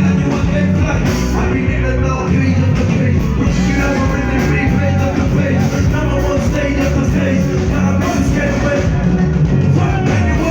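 Loud band music over a PA system with a steady, heavy bass beat.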